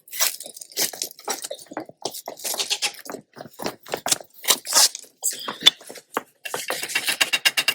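Hand tools scraping and knocking loose mortar and debris off stone veneer: a quick, irregular run of gritty strokes, with a denser stretch of scraping near the end.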